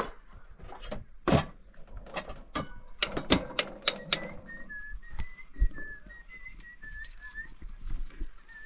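A series of sharp knocks and clicks, then from about four seconds in a thin, high whistle-like tone that wavers slightly in short notes and keeps going.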